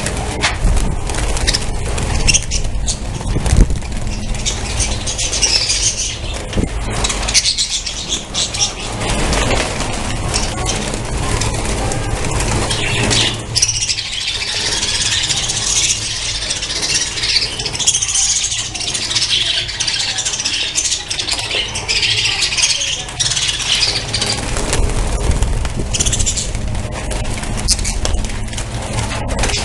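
A colony of budgerigars chattering and squawking together, a dense mass of high calls that grows busier in the middle, over a steady low rumble.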